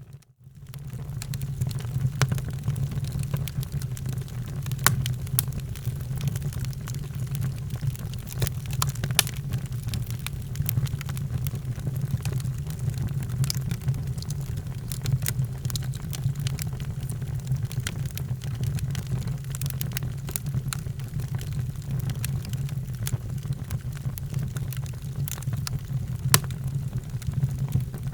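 Wood fire burning in a fireplace: a steady low rumble with scattered sharp crackles and pops. The sound drops out for a moment at the very start.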